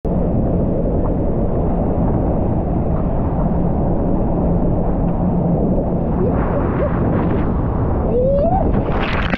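Heavy wind buffeting and rushing water on a camera mic mounted on a towed inflatable tube moving fast through a boat's wake. Near the end a man's voice rises in a shout.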